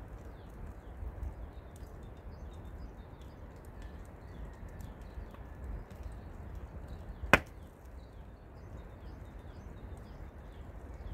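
A single sharp knock, like a chop or strike, about seven seconds in, over a low steady rumble with faint, scattered high chirps.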